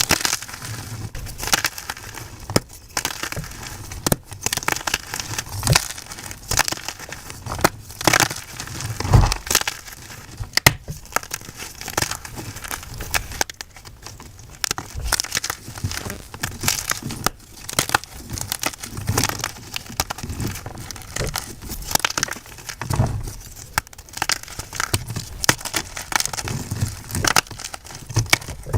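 Blocks of plain white gym chalk being crushed and crumbled: an irregular, continuous run of crisp crunches and crackles with occasional heavier crunches.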